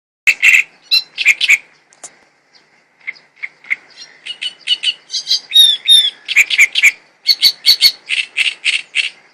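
A songbird singing close by: rapid series of loud, sharp chirps and short whistled notes, thinning briefly about two seconds in, then running on in quick trills.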